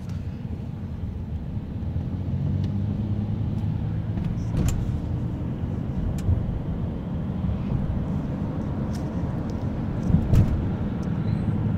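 Car cabin noise while driving: a steady low engine and road rumble, with a few light ticks and a louder bump from the phone being handled about ten seconds in.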